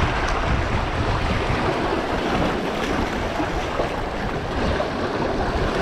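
Wind buffeting the microphone in a steady rumbling rush, with waves washing behind it.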